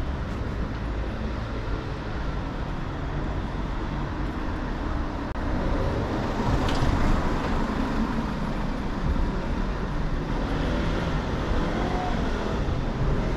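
City street traffic: a steady hum of engines and tyres, getting louder from about six seconds in.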